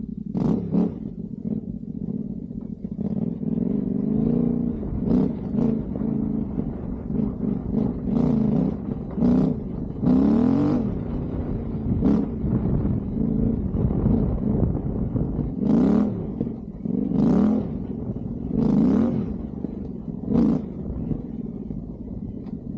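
Yamaha Ténéré 700's parallel-twin engine running under load, its pitch rising and falling as the throttle is opened and closed again and again, with about a dozen short louder surges.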